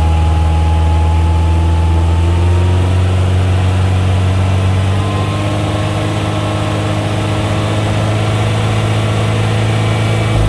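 Car engine held steadily at about 3100 rpm and misfiring; the mechanic pins the misfire on cylinders 1 and 4.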